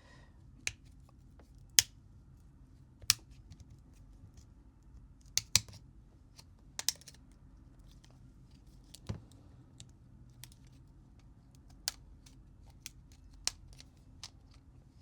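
Sharp plastic clicks and snaps, irregularly spaced, about fifteen of them, with the loudest about two and five seconds in. They come from the plastic housing of a Samsung Galaxy A71 being pried off and its clips letting go.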